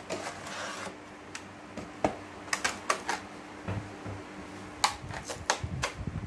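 Toy packaging being opened: a cardboard box rustling, then a series of sharp clicks and crackles as the stiff clear-plastic tray is handled and the toy monkey is pulled out of it.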